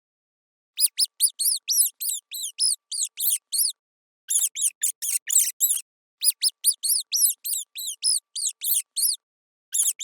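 Mouse squeaking: rapid high-pitched squeaks, about four a second, each a quick rise and fall in pitch, coming in four runs with short pauses between.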